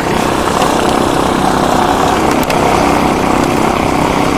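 A piston engine running steadily at an even speed.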